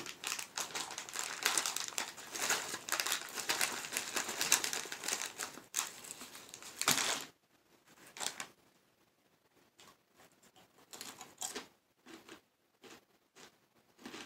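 Plastic snack bag of Takis Fuego crinkling and rustling as hands work it open for about seven seconds, then only a few short crinkles.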